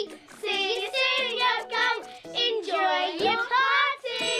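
A high, child-like voice singing a cheerful tune in short phrases with brief breaks, over light instrumental accompaniment, as a cartoon's closing song.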